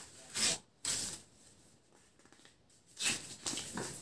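Paper instruction leaflets rustling and crinkling as they are unfolded and handled, in three short bursts: about half a second in, at about one second, and again around three seconds in.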